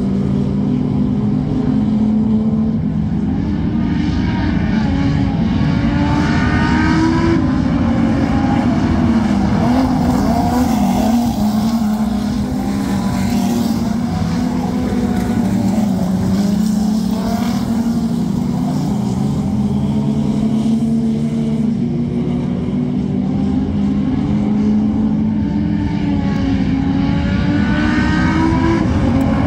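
Several speedway race car engines running hard together on a dirt track, their revs rising and falling through the turns, with engines winding up clearly about six seconds in and again near the end.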